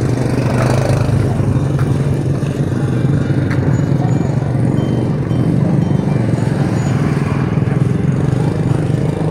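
A small motorcycle engine running steadily close by amid busy street-market bustle, with faint chatter in the background.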